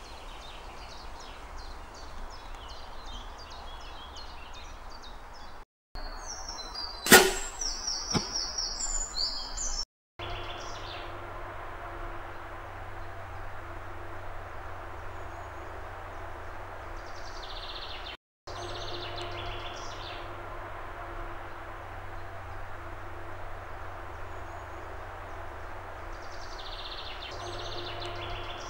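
A compound bow shot about seven seconds in: one sharp crack, followed by a couple of seconds of smaller knocks. Birds chirp in the background.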